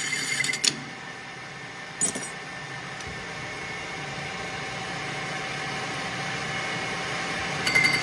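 Metal lathe running with a Honda GX160 starter cup spinning in the chuck. Metal screeches against the cup for about half a second at the start, then comes a knock about two seconds in. The lathe then runs steadily until the cutoff tool bites near the end and a loud screech starts again.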